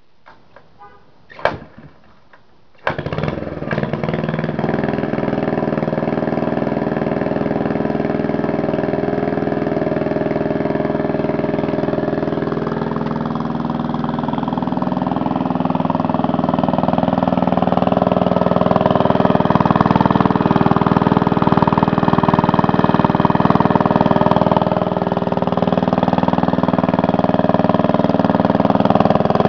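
1945 Briggs & Stratton Model N single-cylinder engine being kick-started: a few light clicks and a sharp knock about a second and a half in, then the engine fires about three seconds in and runs steadily.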